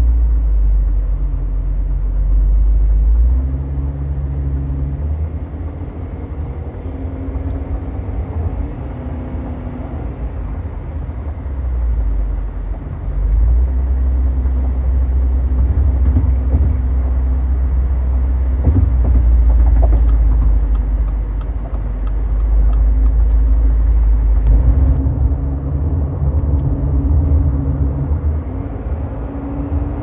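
A 2022 Subaru Crosstrek's 2.5 L FB25 flat-four, breathing through an STI muffler, heard from inside the cabin while cruising. Its low exhaust drone sits at about 1800 RPM, subtle but noticeable, and swells and eases in stretches. A faint, regular ticking runs for a few seconds about two-thirds of the way in.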